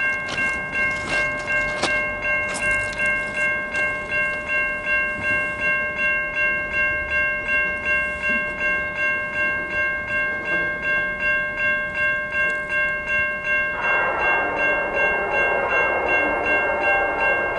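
Railroad grade-crossing warning bell ringing steadily, about two strikes a second, as the crossing signals are active ahead of a train. In the last few seconds the rush of an approaching train grows under the bell.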